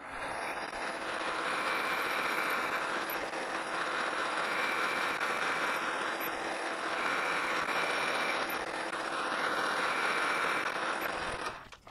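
Metal lathe running with a boring bar cutting into an aluminum workpiece, boring out the hole for a bearing: a steady, loud cutting hiss over the machine's hum. It stops abruptly shortly before the end.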